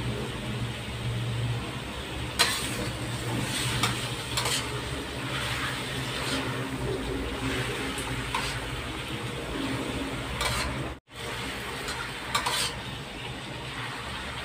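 Pork intestines sizzling in hot oil in a metal wok, with a metal spatula scraping and knocking against the pan every second or two as they are stir-fried. The sound cuts out for an instant about eleven seconds in.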